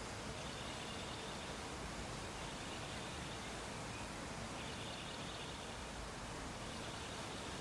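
Steady background hiss, with a faint high-pitched trill that comes and goes four times.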